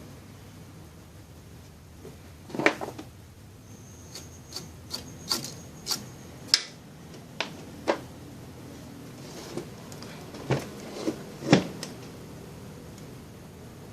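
Irregular clicks and knocks, about a dozen, of small tools and parts handled on a workbench, with a faint high steady tone for a few seconds in the middle.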